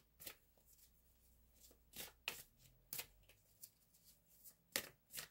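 Faint, scattered flicks and taps of oracle cards being handled, about seven soft clicks at uneven intervals rather than a continuous shuffle.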